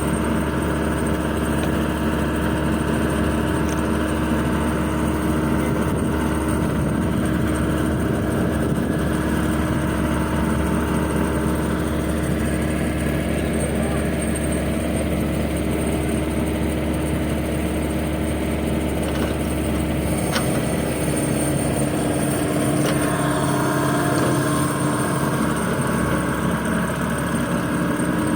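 Excavator's diesel engine running steadily, its low note shifting about twenty seconds in.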